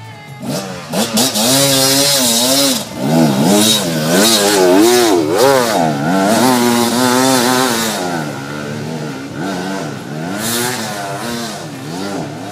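Dirt bike engine revving up and down as it climbs a steep dirt trail, its pitch rising and falling every second or so under the throttle. It gets loud about two seconds in and eases off in the last few seconds.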